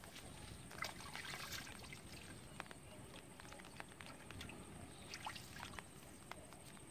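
Shallow muddy water splashing and trickling in short irregular bursts as hands work in it around a bamboo box fish trap.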